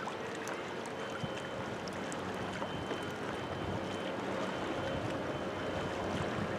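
Steady distant drone of a container ship and a harbour tug under way, with a faint steady hum over wind and water noise.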